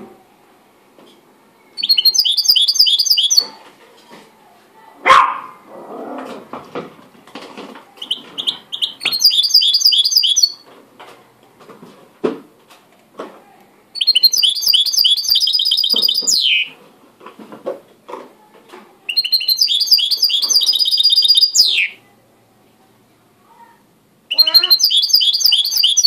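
White mixto (goldfinch × canary hybrid) singing: five bursts of fast, rattling trilled song a few seconds apart, two of them ending in a falling slurred note. Between phrases there is a sharp knock about five seconds in and faint clatter.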